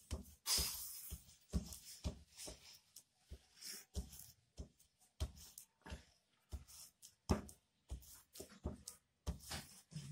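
Rolling pin and hands working a slab of laminated pastry dough on a worktop: irregular knocks and taps, roughly one or two a second, with a short scratchy rustle near the start.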